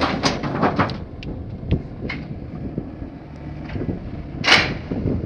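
Scrapyard grab excavator running, with a low engine rumble and scattered metal clanks and knocks, and one loud crash of metal and scrap about four and a half seconds in.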